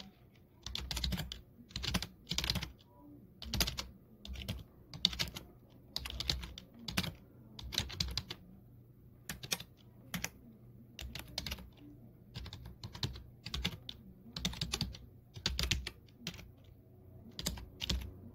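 Typing on a computer keyboard: uneven runs of keystroke clicks with short pauses between them.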